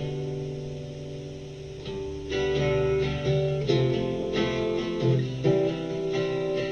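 Instrumental song intro on guitar: a held chord rings and slowly fades, then strummed chords come in about two seconds in and carry on steadily.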